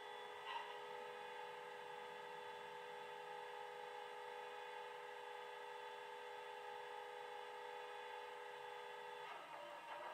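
Diesel engine idle sound of a BR 218 locomotive, played by an ESU LokSound 5 sound decoder through the model's small speaker. It is a steady, even hum that changes and grows louder near the end as the engine sound picks up.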